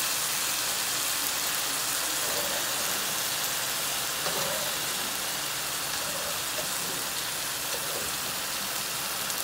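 Beef, potatoes and vegetables sizzling in a hot metal pot, an even steady hiss.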